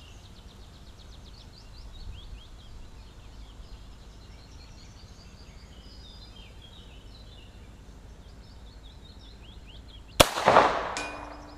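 A single shot from a Chiappa M9-22, a .22 LR copy of the Beretta M9 pistol, about ten seconds in: a sharp crack whose report rolls on and fades over about a second.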